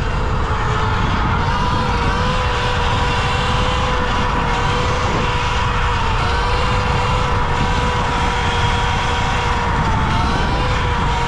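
Falcon Pro 79 electric dirt bike's drivetrain whining steadily while riding at a fairly constant speed, the pitch dipping slightly about ten seconds in, over heavy low rumble and wind noise.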